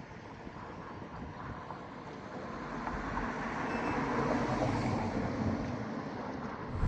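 A road vehicle passing by, its noise growing louder and then fading. A louder low rumble cuts in abruptly at the very end.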